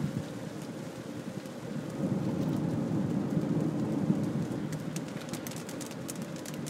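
Rain drumming on a car's roof and windscreen, heard from inside the cabin as the car drives, swelling louder about two seconds in. Sharp ticks join it near the end.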